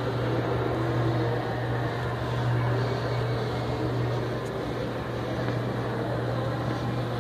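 A steady low hum over an even hiss of indoor background noise, with no music or other distinct sound.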